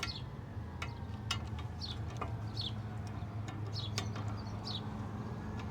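Scattered light clicks of hand tools on a rear disc-brake caliper as its piston is wound back in, with short high chirps about once a second.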